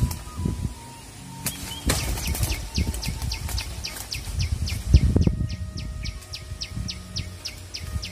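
A bird calling a rapid run of short, high, falling chirps, about three a second, starting a couple of seconds in, over low thumps and handling noise, the loudest thump about five seconds in.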